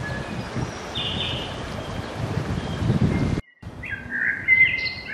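Songbirds singing and calling over a steady low rumble. About three and a half seconds in, the sound cuts out for a moment, then the birdsong comes back louder and fuller.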